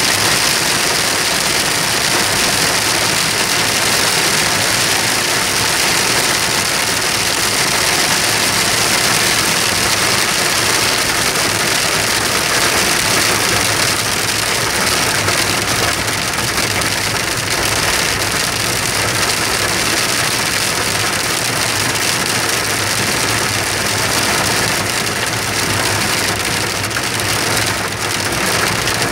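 Heavy rain mixed with hail pelting a car's roof and windshield, heard from inside the car as a loud, steady, dense hiss.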